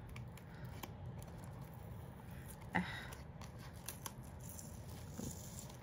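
Faint clicks and rustles of sticky packaging tape being picked at and peeled off a cosmetics palette's box, with one louder click about three seconds in.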